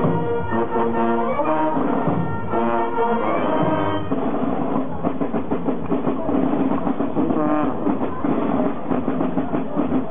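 Carnival brass band playing a tune with a steady drum beat. The music shifts abruptly about four seconds in.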